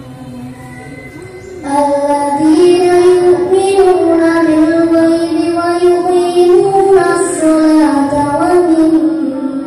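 A boy's voice reciting the Qur'an in melodic tartil style, amplified through a hand-held microphone and portable loudspeaker. After a quieter opening pause, the chant comes in strongly about two seconds in, with long held notes that waver and slide in pitch.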